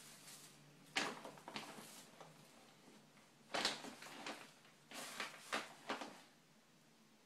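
Thin plastic grocery bags rustling and crinkling in several short bursts as a dog noses and digs through them.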